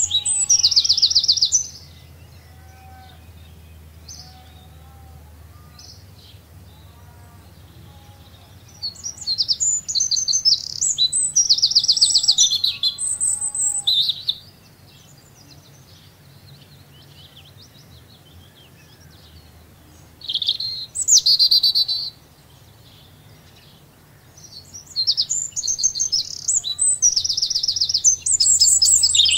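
Songbird song in four loud bursts of rapid, high-pitched trills, with fainter chirps from other birds between them and a low steady hum beneath.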